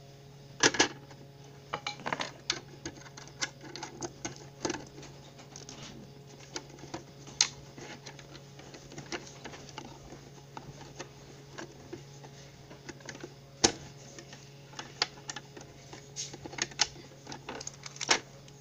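Plastic Lego bricks clicking and clattering as they are handled and pressed together by hand: irregular small clicks, with a few louder snaps about a second in, a little before two-thirds of the way through, and near the end.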